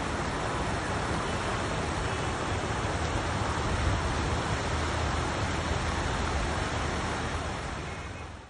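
Steady rushing noise of heavy rain and floodwater as a car drives slowly through deep water on a flooded street, with a low rumble underneath. It fades out near the end.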